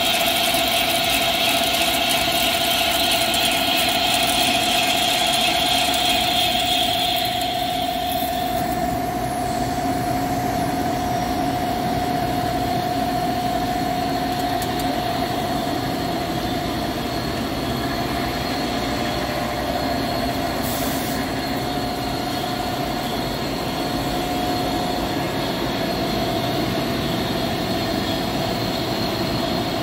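Hankook PROTEC-9NC CNC lathe running as it turns a stainless steel roll: a steady whine over even machine noise, with a higher hiss for about the first eight seconds that then stops.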